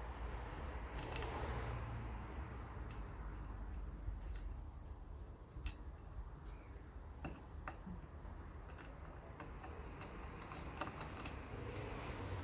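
Scattered light clicks and taps of small metal fan parts and hand tools being handled during disassembly of a vintage Airflow 12 fan, with a quick run of clicks near the end.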